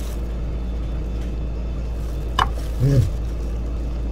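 A steady low hum, with a short voiced 'mm' from the person tasting the drink about three seconds in, just after a brief click.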